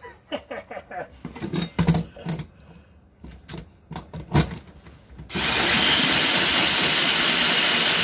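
A few knocks and taps, then about five seconds in a cordless drill with a hole saw starts cutting into the top of a refrigerator cabinet. The cutting makes a loud, steady noise that holds without a break.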